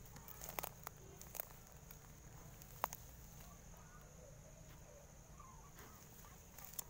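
Faint night-time outdoor ambience: a steady, high cricket chorus, with a few light clicks and rustles of dry grass scattered through it.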